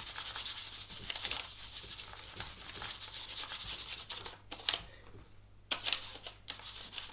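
Paintbrush scrubbing oil paint onto brown paper in quick rubbing strokes, a continuous scratchy rasp, which gives way about four seconds in to a few separate short strokes.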